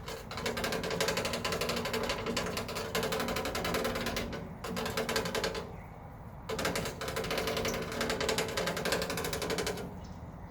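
Muscovy ducks making a loud, very fast rattling on a rain-gutter downspout, like a typewriter or a small jackhammer. It comes in runs, breaking off briefly about four and a half seconds in and for a longer pause around six seconds, then stops near the end.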